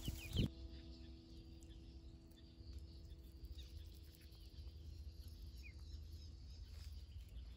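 Ducklings peeping faintly now and then, short high chirps over a low rumble.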